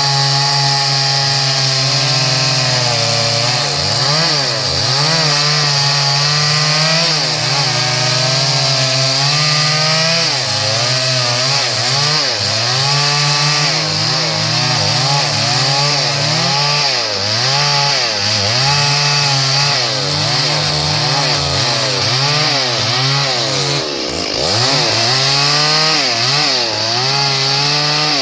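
STIHL MS382 two-stroke chainsaw running at high revs and cutting hardwood. Its engine note keeps sagging under the load of the cut and picking back up, with one deeper drop and recovery about 24 seconds in.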